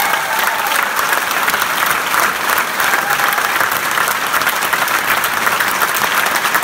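Applause: a large group of people clapping steadily.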